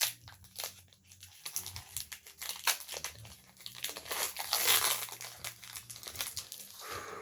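Foil wrapper of a Pokémon card booster pack crinkling and being torn open, an irregular run of sharp crackles.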